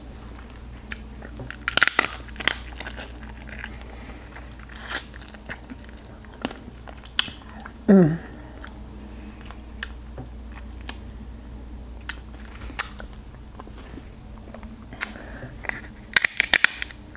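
Crab shell being bitten and cracked in the mouth, with wet chewing and sucking between the crunches. The sharpest cracks come about two seconds in and in a quick run near the end. About eight seconds in there is a short falling slurp as the meat is sucked from the shell.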